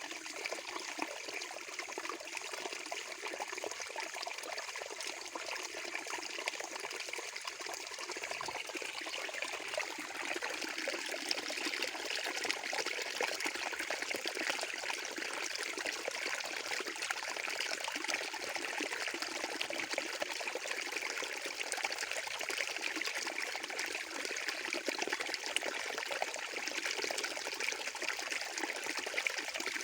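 Running water trickling and splashing steadily, a little fuller about ten seconds in.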